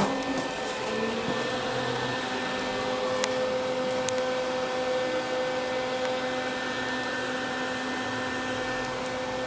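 Steady whirring hum of a small electric motor or fan running, with a few faint clicks.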